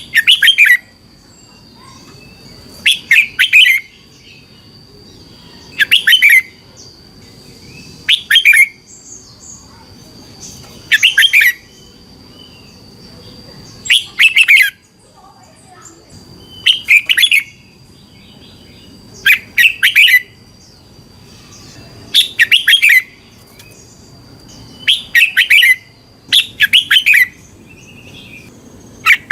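Red-whiskered bulbul singing: a short, loud, bubbling song phrase about every two and a half to three seconds, repeated over and over.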